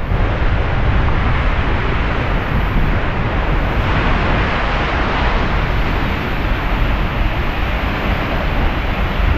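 Seljalandsfoss waterfall crashing down at close range: a loud, steady rush of falling water with a deep rumble.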